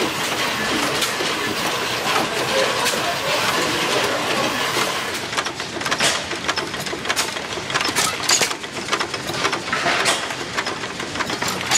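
Old stationary engines running with a dense mechanical clatter. From about five seconds in, a United 2½ HP stationary gas engine is belt-driving a small water pump, with sharp, irregular clicks and knocks.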